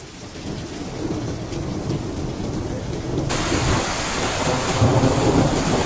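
Rushing floodwater and rain: a loud low rumble that spreads into a steady hiss about three seconds in.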